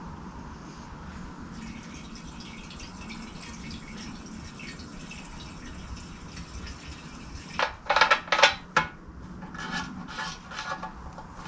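Hand work on an outboard motor: a quick cluster of four or five short, sharp scraping sounds about two-thirds of the way through, then a few fainter ones, over a steady low hum.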